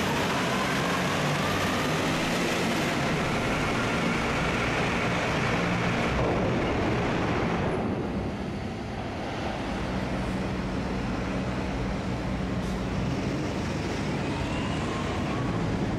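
Diesel engine of a tugmaster terminal tractor running as it hauls trailers during ro-ro unloading, with a whine that rises in pitch over the first few seconds. The level drops a little about eight seconds in, and another rising whine comes near the end.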